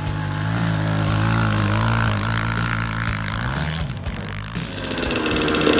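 Small dirt bike engine running as the bike is ridden across snow. Its note climbs slightly about three seconds in and drops out briefly near four seconds, then returns fainter.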